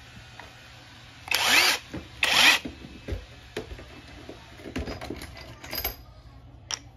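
Einhell cordless impact wrench triggered twice in quick succession, its motor whining up in pitch for about half a second each time. Light clicks and knocks of the tool being handled follow.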